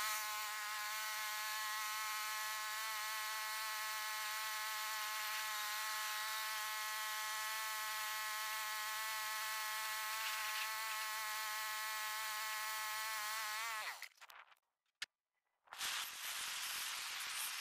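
Troy-Bilt riding lawn tractor's engine running at a steady speed while it is driven, a steady buzz that drops in pitch and stops about fourteen seconds in. After a short break, a propane weed torch starts up with a steady hiss near the end.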